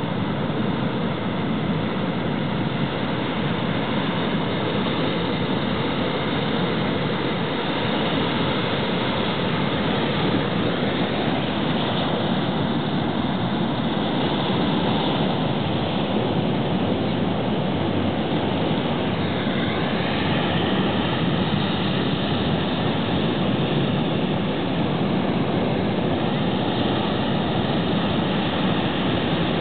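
Shorebreak waves breaking and washing over rocks: a steady, even rush of surf.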